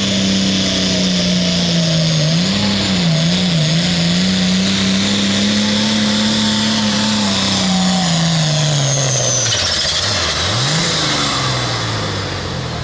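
Case IH 7240 Limited Pro Stock pulling tractor's turbocharged diesel engine running hard under load down the track. Its note holds steady, wavers a few seconds in, then sags lower and lower as the sled pulls it down. Near the end it drops away sharply, picks up for a moment and falls off again as the pull ends.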